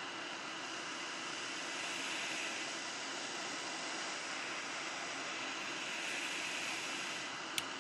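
Hot air rework station blowing a steady hiss of hot air onto a phone motherboard to loosen a metal shield, with one sharp click near the end.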